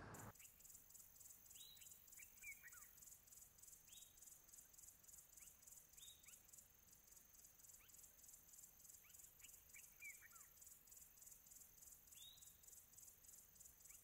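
Near silence with faint outdoor ambience: sparse bird chirps, short notes sweeping downward every couple of seconds, over a faint high-pitched, rapidly pulsing insect trill.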